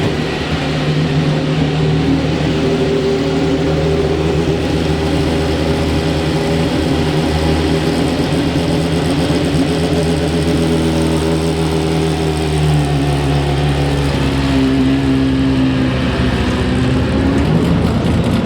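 Racing car engine running loud at fairly steady revs, its pitch holding level and stepping up a little about two-thirds of the way through.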